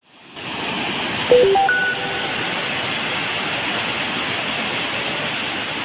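Steady rushing noise of a cold lahar, a fast flood of water mixed with volcanic sand and mud. About a second in, a quick run of four electronic beeps at different pitches sounds over it.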